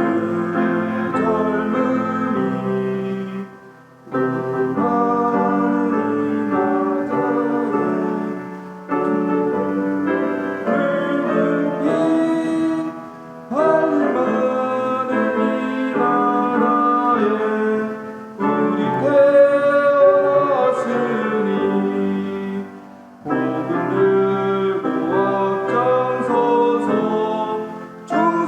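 Worship song sung with keyboard accompaniment, in phrases a few seconds long with short breaks between them.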